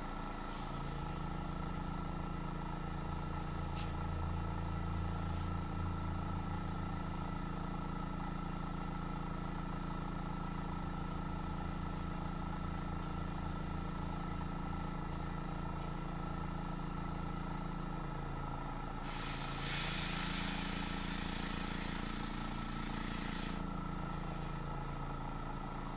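Small airbrush compressor running steadily with a low, even hum. About 19 seconds in, air hisses out for about four seconds, then stops while the compressor keeps running.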